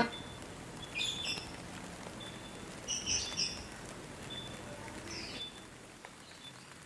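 Birds chirping: a few short high calls about a second in, three seconds in and five seconds in, over a faint steady hiss.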